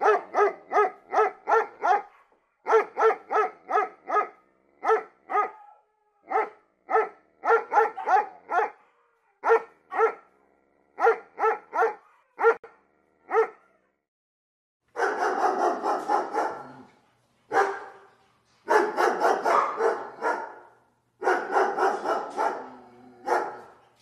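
German Shepherd barking in runs of short barks, about three a second, with short pauses between runs. About fifteen seconds in, the barking turns into longer, denser stretches of rapid barks.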